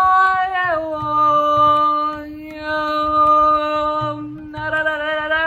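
A woman's voice holding long wordless tones, like a chant rather than a song, sliding down in pitch about a second in and pausing briefly twice, over a steady low tone.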